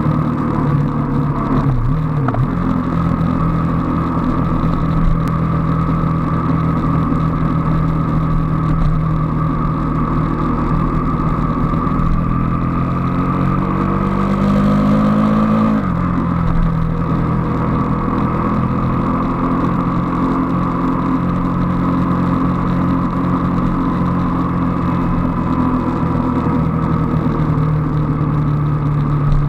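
Motorcycle engine running at road speed over a steady rush of wind and road noise. About halfway through, the engine note climbs as it accelerates, then drops suddenly with an upshift.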